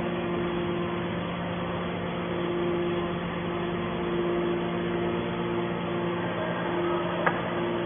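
Hydraulic scrap-metal baler running with a steady, even hum, with one short click near the end.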